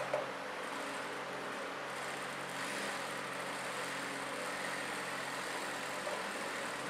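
Steady mechanical hum of a running motor, even throughout, with a short knock at the very start.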